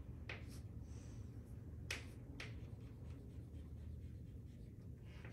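Chalk on a chalkboard while drawing, a few sharp clicks and taps as the chalk strikes the board, over a low steady room hum.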